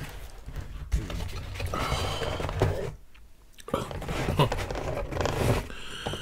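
Close-miked chewing of pizza, with wet mouth sounds and small clicks, pausing briefly about three seconds in.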